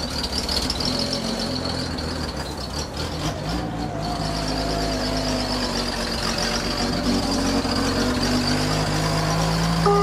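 GMC step-van ice cream truck engine idling steadily after a hard start, with a steady high whine over the low running note.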